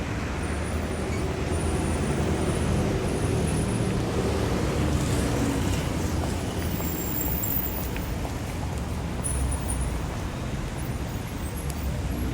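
City street traffic: a steady rumble of passing cars and other vehicles, swelling slightly a few seconds in.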